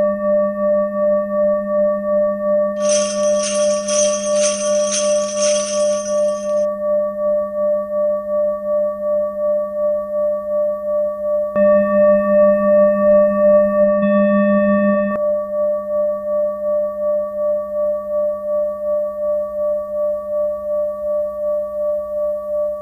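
A bell rings as one long sustained tone that pulses in a steady waver, two or three beats a second. A high, rapid jingling shimmer sounds over it about three seconds in and lasts some four seconds. Midway, a second, louder ringing tone joins for about three and a half seconds and cuts off suddenly.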